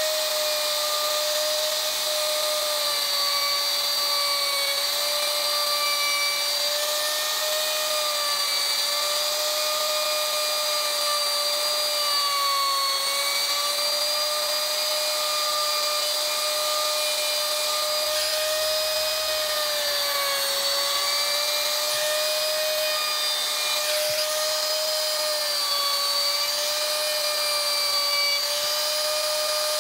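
Hand-held electric wood router running at full speed and cutting the background of a relief carving in a wooden panel: a steady high motor whine whose pitch dips slightly a few times as the bit is pushed through the wood.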